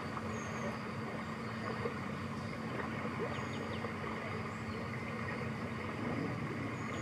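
Steady background ambience: a constant low hum under an even noise, with a few faint high chirps.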